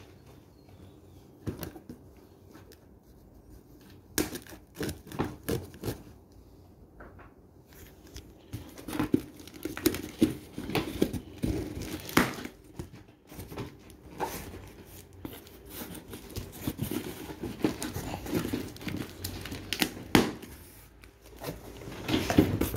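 Packing tape being torn from a cardboard box and its flaps pulled open by hand: irregular crackling, tearing and rustling of tape and cardboard, sparse at first and busier in the second half.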